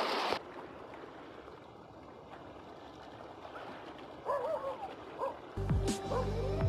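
Quiet wash of sea water at a rocky shoreline. About four seconds in come a few high, whining yelps. Near the end, background music with a steady bass comes in.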